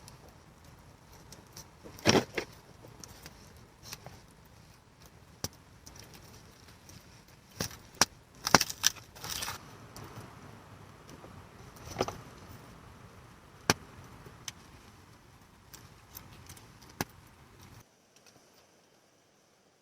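Campfire crackling, with scattered sharp pops and a few louder knocks and clinks from handling cooking gear over a faint hiss. The background cuts off abruptly near the end.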